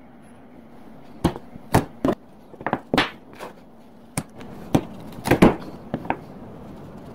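A hand chisel cutting out the waste between saw kerfs in a wooden lap joint: about a dozen sharp, irregular wooden clicks and knocks as the edge is driven into the wood and chips break free. The knocks start about a second in.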